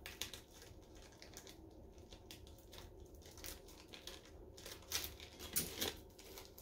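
Glitter-coated adhesive vinyl crinkling and crackling as it is peeled off a tumbler: a run of faint light clicks, with a few louder crackles about five seconds in.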